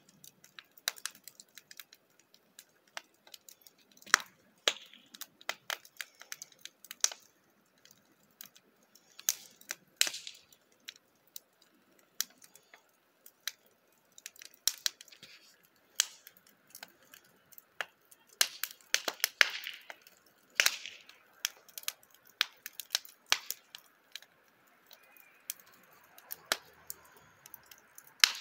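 Wood fire burning in a steel mesh fire pit, crackling with irregular sharp pops and snaps, a few much louder than the rest.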